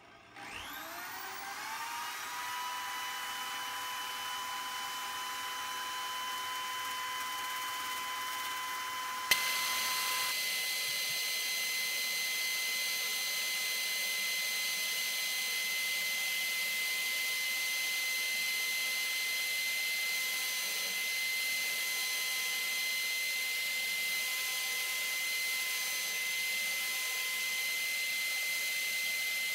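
A handheld power tool's electric motor spins up with a rising whine and then runs at a steady speed. About nine seconds in, a click comes and the whine steps up to a higher pitch, where it holds steady.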